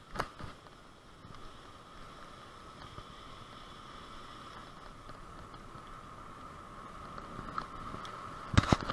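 Road bicycle rolling along an asphalt lane, heard from a handlebar-mounted camera: a steady hum of tyre and wind noise that slowly grows louder, with a sharp knock at the very start and a cluster of knocks near the end as bumps jolt the bike.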